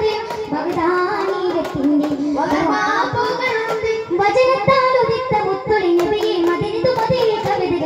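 A chorus of boys singing a devotional song in unison, with the rhythmic beating of hand-held daff frame drums under the melody, in the style of Kerala daff muttu.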